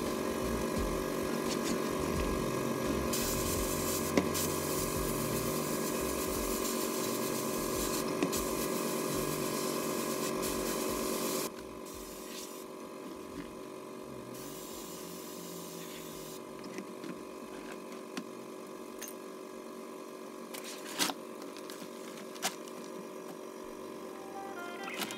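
Sandblasting in a home-made blast cabinet: a loud, steady hiss of the blast gun with a steady hum under it. Just under halfway through it drops to a quieter hiss with short intermittent blasts and a few clicks.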